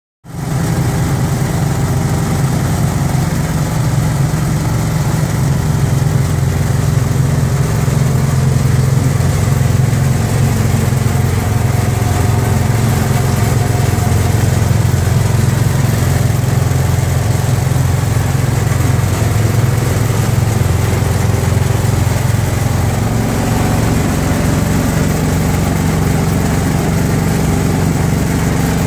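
Engine of a 1948 Jaeger concrete mixer running steadily at an even speed.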